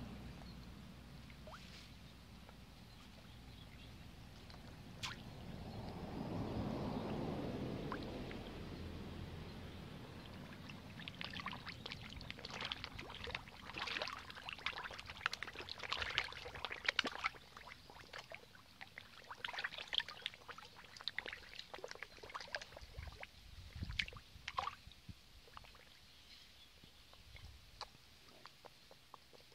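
A crowd of koi churning the pond surface: many short splashes and sucking smacks as the fish break the water, densest through the middle. A short rushing swell comes about six seconds in.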